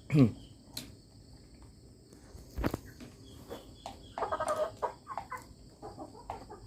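Chickens clucking in a coop, with a short loud sound dropping in pitch at the very start and one longer call about four seconds in. A sharp knock comes near the middle, among scattered light taps.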